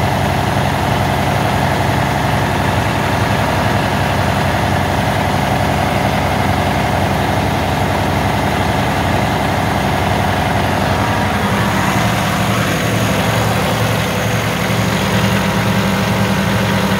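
Cummins X15 inline-six diesel engine idling steadily.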